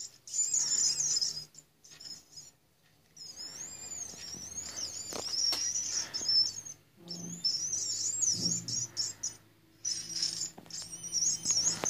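A music chip's small speaker playing a high, warbling electronic tune, powered by a homemade battery of two metal plates wrapped in a wet wipe. The tune cuts out twice, for about a second and a half early on and briefly near the end, as the connection breaks.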